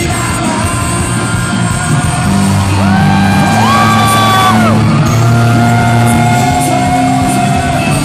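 A live J-rock band playing loudly in a large hall: electric guitar, keyboard and drums under a male lead vocal. A few long held notes that bend in pitch come about three seconds in.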